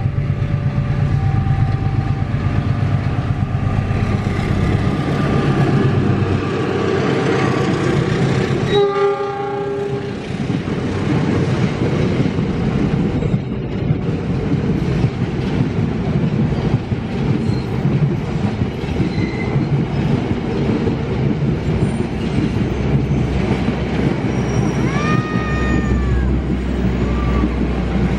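Diesel-electric locomotive and its passenger coaches passing at speed, the engine running and the wheels clattering over the rails. A short horn blast sounds about nine seconds in, and a brief tone rising then falling near the end.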